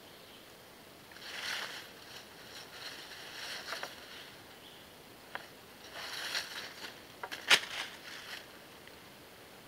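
Handling noise from stretching a bungee cord around a log frame: rustling in dry leaf litter and of the cord in several short bursts, with a few sharp clicks, the loudest about seven and a half seconds in.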